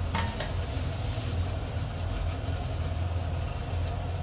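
Gas stove burner running under a covered aluminium cooking pot: a steady low rumble with a hiss over it. A short clink comes right at the start.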